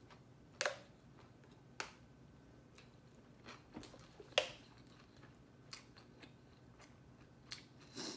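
Close-miked chewing of a mouthful of gimbap, with a handful of sharp mouth smacks or clicks; the loudest come about half a second in and again a little past four seconds.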